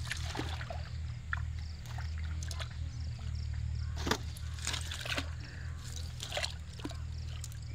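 Fish being picked out of a wet fishing net by hand at the water's edge: scattered slaps, rustles and small splashes, over a steady low hum.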